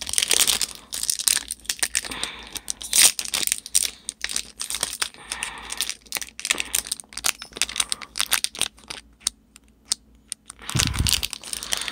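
Foil Pokémon booster pack being torn open and handled, with irregular crinkling and crackling that thins out to scattered clicks in the last few seconds, then a rougher handling rumble near the end.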